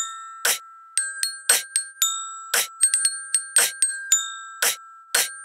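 Metal bell lyre (glockenspiel-type bars) struck with a mallet, playing a ringing melody of single notes. Between the notes, human beatbox snare sounds keep a steady beat of about two a second.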